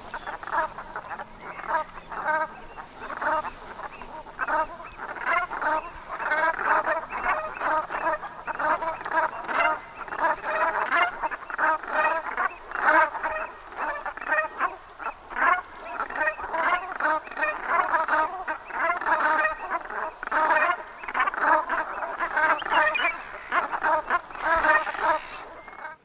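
A flock of brent geese calling: many short honks overlapping in a constant chatter, several calls a second.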